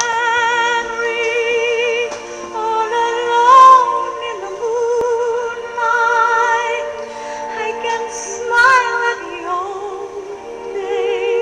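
A woman singing long held notes with a wide vibrato over a musical backing track.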